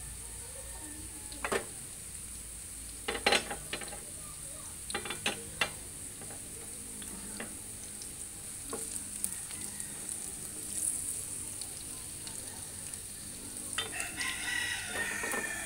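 Carrots and potatoes frying in oil in a pan, with a steady sizzle. There are a few sharp clicks and knocks of kitchenware, and near the end a spatula scrapes and clatters in the pan as the vegetables are scooped out.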